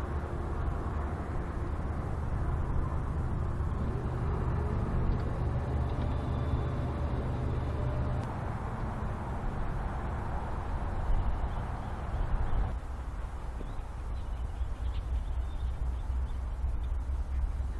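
BNSF diesel freight locomotive's engine, a low steady rumble as the train approaches slowly; the higher part of the sound drops off suddenly about two-thirds of the way through.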